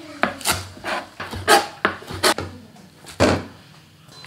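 Kitchen knife chopping a bunch of garlic chives against a plastic cutting board: a run of sharp knocks, roughly two a second, that stops about three seconds in.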